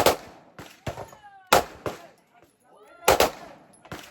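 Gunshots in irregular succession, about eight in four seconds, some louder and some weaker, each with a short echo tail: several shooters firing at a range.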